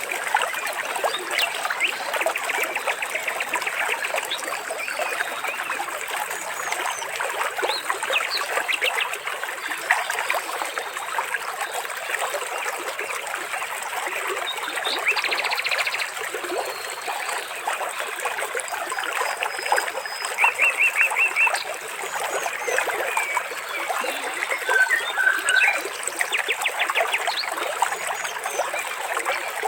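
Water trickling and splashing steadily, with short rapid bird trills breaking in five or so times.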